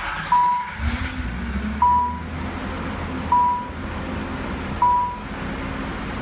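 1988 Nissan 300ZX V6 started: the engine cranks and catches within about the first second, then runs steadily at a raised idle. The car's warning chime dings about every one and a half seconds over it.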